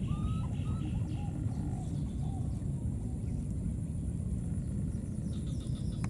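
Outdoor ambience: a steady low rumble, with a few faint bird chirps in the first second and a thin steady high tone.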